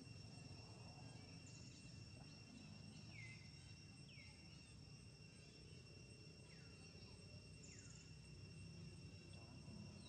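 Faint steady drone of insects, a high whine held on two pitches, with short high chirps sweeping downward every second or so.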